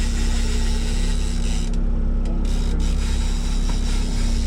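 Fishing boat's engine running steadily at trolling speed: a constant low hum with a few steady tones, under an even hiss.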